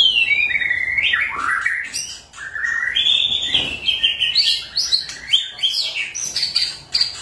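White-rumped shama singing a loud, fast song of whistled notes: first a phrase sliding downward, then after a brief pause a long run of notes stepping up and down, with sharp clicks mixed in.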